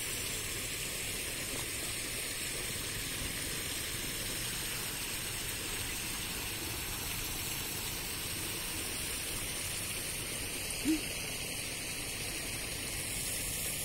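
Water spilling over a full check dam, a steady rushing. One brief short sound stands out about eleven seconds in.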